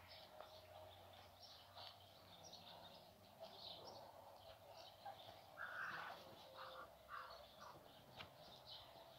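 Faint bird calls outdoors: many short, high chirps throughout, with a few louder, lower calls between about five and a half and seven seconds in.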